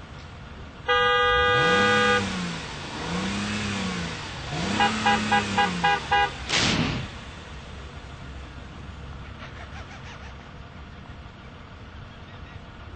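Mercedes convertible's horn blown in one long blast. The engine is revved three times, the horn gives six quick toots, and then a single sharp whack sounds.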